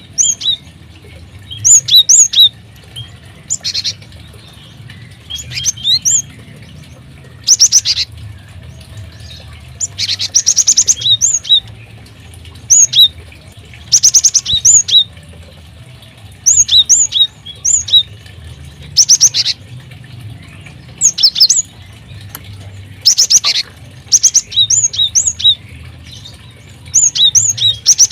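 Small aviary birds chirping: clusters of short, high chirps every second or two, some running together into quick rattling trills.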